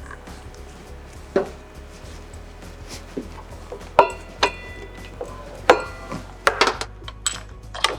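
Metal hand tools clinking and knocking against motorcycle parts in about ten separate sharp hits, several ringing briefly, over steady background music.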